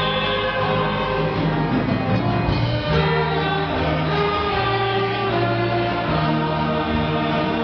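A church orchestra playing a hymn in slow, sustained chords.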